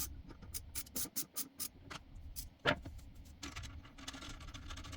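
Ratchet with a 13mm socket clicking as it is worked back and forth, tightening a toilet seat hinge screw. The clicks come in a quick run of about five a second for the first two seconds, then turn sparser, with one sharper click a little before the middle.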